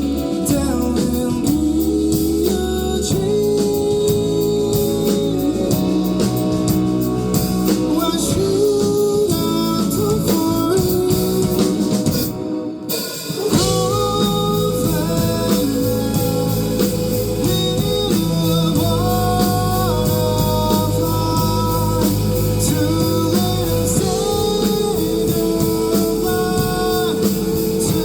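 A rock band playing live, with singing over guitar and drums. A little under halfway through the band cuts out for about a second, then comes back in.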